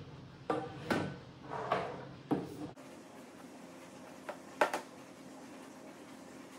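Metal spoon knocking against the rim of a stainless steel Thermomix mixing bowl and scraping a plastic bowl, as stiff chilled spread that won't come off is worked loose. A few knocks in the first two and a half seconds, then two sharp taps a little after four seconds.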